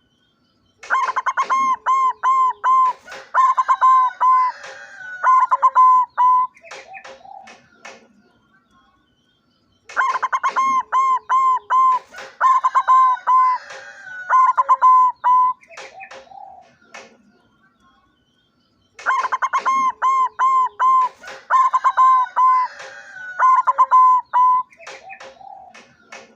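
White barred zebra dove (perkutut) cooing: three bouts of quick, ringing, evenly repeated coos, each lasting about seven seconds, with pauses of a few seconds between.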